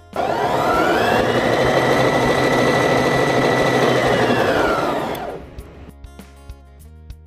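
Brother JV1400 portable sewing machine running: its motor whines up to speed, runs steadily and smoothly for about four seconds, then slows and stops about five seconds in.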